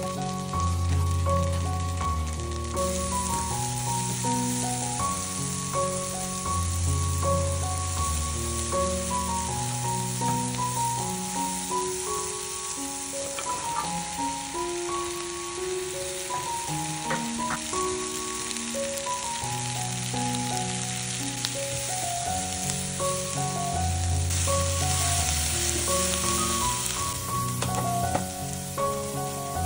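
Sliced onion and carrot sizzling in butter and oil in a frying pan and being turned with tongs. The sizzle starts about three seconds in and grows louder near the end, over background music.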